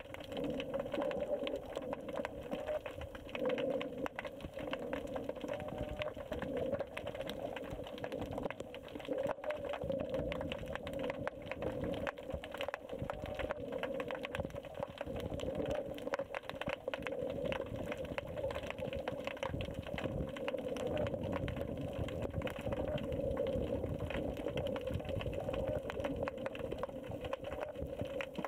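Sea noise recorded under water: a muffled, steady hum with a dense crackle of tiny clicks throughout.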